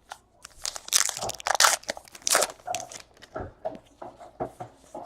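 Foil wrapper of a baseball card pack crinkling and tearing as it is ripped open, with irregular crackles that are loudest about a second in and then trail off into lighter rustling.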